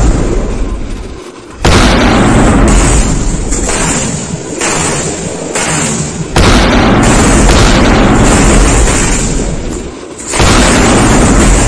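Giant firecrackers going off: three very loud booms, the first under two seconds in, one midway and one near the end. Each is followed by a long, loud rumbling decay.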